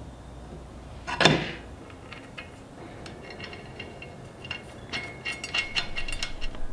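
Stainless steel propeller and its hub hardware being fitted by hand onto an Evinrude outboard's propshaft: one louder knock about a second in, then a run of small metallic clinks and taps as the parts slide and seat on the shaft.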